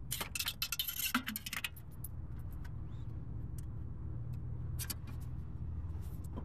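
A quick run of metallic jingling clicks for about the first second and a half, then a few scattered clicks over a steady low hum.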